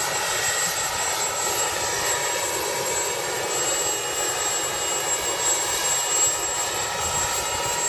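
Erickson S-64 Air-Crane heavy-lift helicopter running steadily on the ground, its twin turboshaft engines giving a constant whine over the rotor noise.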